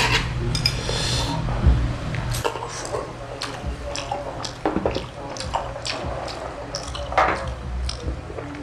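Close-miked eating sounds: a string of short clicks and wet mouth and liquid sounds, with a low steady hum under the first couple of seconds.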